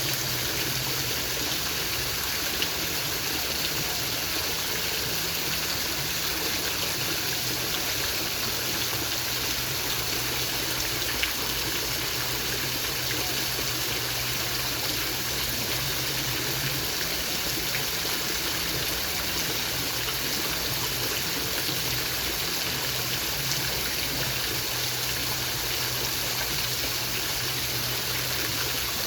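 Waterfall: falling water, steady and unbroken.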